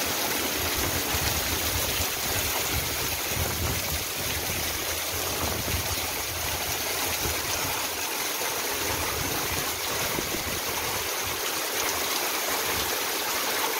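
Heavy rain pouring down in a steady hiss, with gusty wind that comes through as uneven low rumbles.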